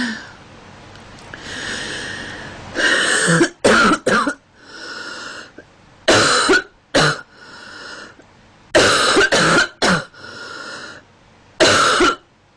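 A girl coughing in four short fits, each of one to three coughs, with quieter stretches between the fits.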